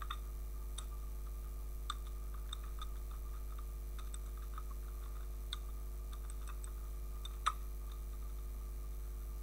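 Computer keyboard keys clicking irregularly as code is typed, with one louder keystroke about seven and a half seconds in, over a steady low electrical hum.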